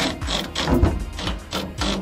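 Cordless drill driving fasteners into a 3D-printed jet unit intake on an aluminium boat hull, in several short bursts.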